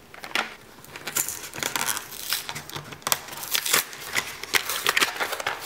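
Plastic blister packaging being pried and pulled off its cardboard backing card by hand, crackling and crinkling with many sharp clicks.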